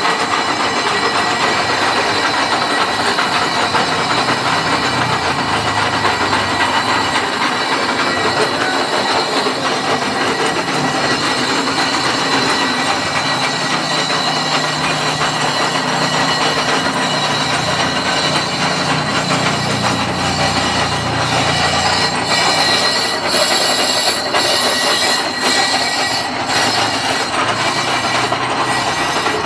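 A metalworking machine tool running steadily, making a loud, even grinding noise with a few steady high tones. A low hum swells in the middle and fades again.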